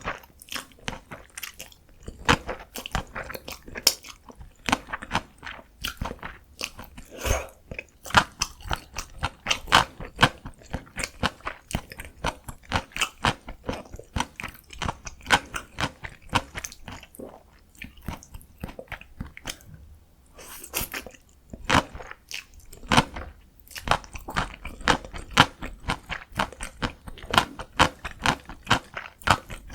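Close-miked chewing of cold spicy bibim noodles, a dense run of quick wet clicks and soft crunches that thins out briefly about two-thirds of the way through.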